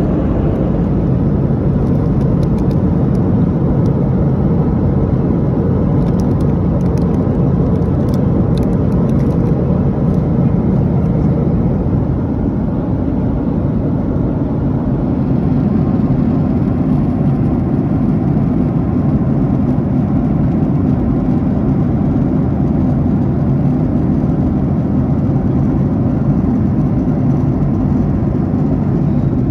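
Steady cabin noise of a Boeing 737-800 in flight, heard inside the cabin: an even, deep rush of airflow and drone from its CFM56-7B engines.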